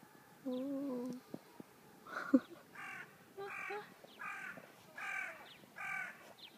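A bird calling six times in a row, about one call every 0.8 seconds, each call dipping in pitch. Before the calls there is a short wavering tone about half a second in, and a sharp knock just after two seconds in.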